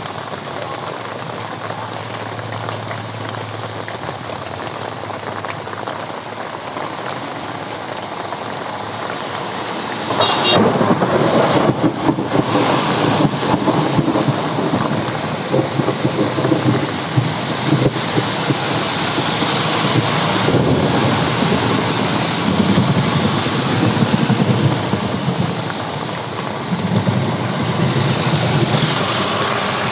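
Steady rain, then about a third of the way in a sudden loud crack of thunder, followed by continuing rumbling over the rain.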